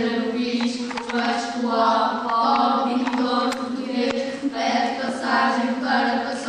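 A group of voices chanting together over a steady held drone, the chant coming in a regular rhythm about twice a second.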